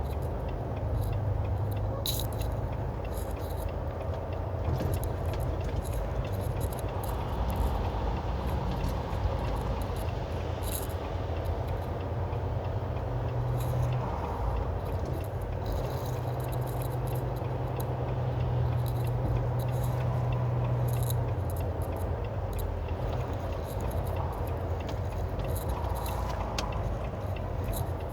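Semi truck running down the highway, heard from inside the cab: a steady low engine and road drone that grows a little stronger about halfway through, with light rattles and clinks from the cab.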